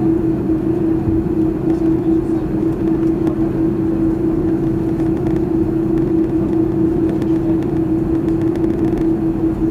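Cabin noise of an Airbus A330-200 taxiing after landing: the engines running, heard through the fuselage as a steady rumble with one constant hum over it.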